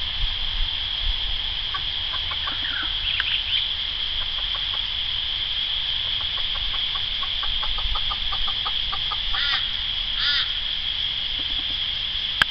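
Hen giving snake alarm calls: a rapid run of short clucks over several seconds, then two louder squawks near the end, over a steady high-pitched hum.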